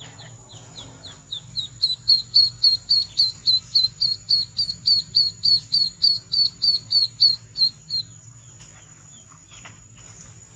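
Duckling peeping: a steady run of short, high chirps, about three to four a second, that stops about eight seconds in.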